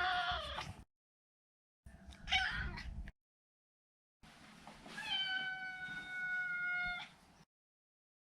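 Maine Coon cat meowing: the end of one meow, a short meow about two seconds in, then a long drawn-out meow of about three seconds that rises at its start and then holds a steady pitch, falling slightly.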